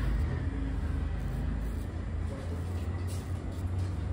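A steady low rumble, with faint short scraping strokes of a razor shaving beard stubble now and then.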